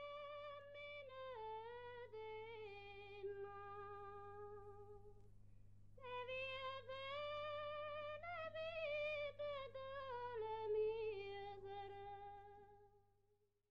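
A single high voice singing a slow, ornamented melody with vibrato, unaccompanied, in two long phrases with a short break about five seconds in, fading out near the end. A low steady hum lies underneath.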